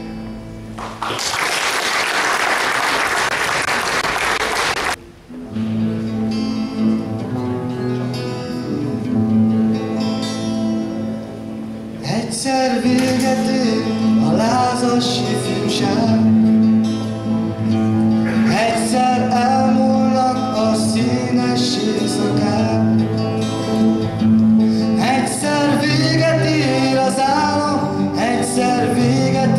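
Applause for about four seconds, then several acoustic guitars start playing, and from about twelve seconds in a young man's voice sings over the guitars.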